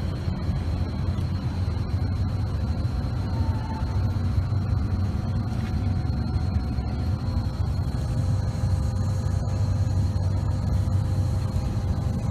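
A large vehicle's engine idling steadily: a continuous low rumble with a faint steady whine above it.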